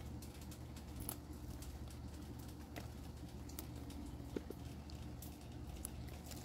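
Faint snapping and rustling of leafy garden greens being picked by hand: a scatter of small, irregular clicks over a steady low hum.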